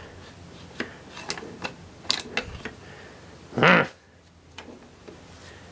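Light metallic clicks and taps as gloved hands work the cast-iron feed-drive lever and shaft assembly of a milling machine. About three and a half seconds in comes a short, louder vocal sound from the man, like a grunt.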